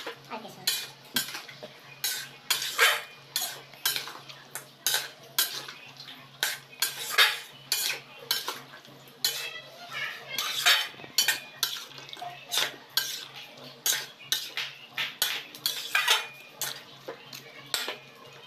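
Metal spoon stirring vegetables in a metal wok, scraping and clinking against the pan about two or three times a second.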